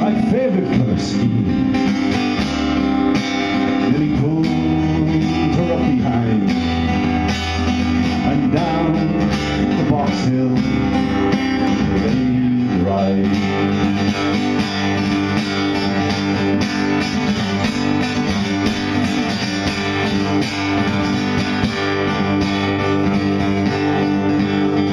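Solo acoustic guitar playing a folk song, with a man's singing voice coming in at times over it.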